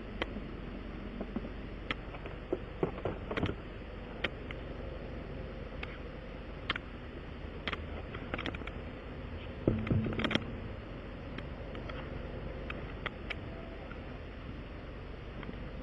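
Scattered sharp clicks and knocks of tools and parts being handled during a tire patch repair, with a louder cluster of knocks a few seconds in and another near the middle, over a steady background hum.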